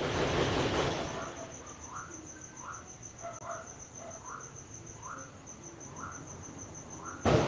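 Insects trilling at night in a phone voice-note recording: a steady, fast-pulsing high trill, with a short rising call repeating about every three-quarters of a second. A loud burst of noise breaks in near the end.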